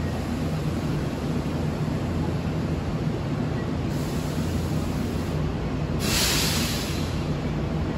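Electric train noise at a railway terminus: a steady low hum, with a sudden burst of hiss about six seconds in that lasts about a second.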